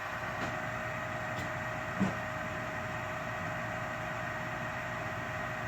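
Gas furnace inducer draft motor running steadily with a constant hum, while the hot surface igniter heats and the gas valve has not yet opened. A single light click about two seconds in.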